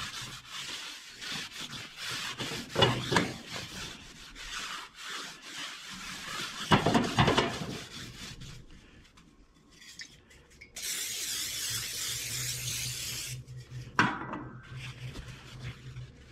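Hand scrubbing of a rusty, oiled cast-iron wood cook stove top with a small pad: a rapid rasping rub of back-and-forth strokes that stops about eight seconds in. Later there is a steady hiss of two or three seconds, then a single knock.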